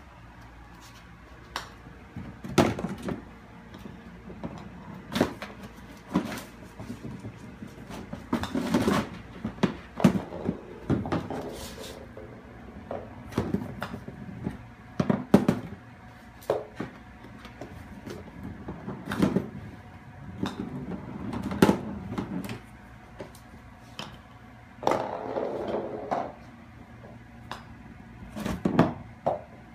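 Irregular knocks, clicks and rattles as a kitten paws at golf balls and the plastic hole cup of an indoor putting mat, with a few short bouts of scuffling on the mat.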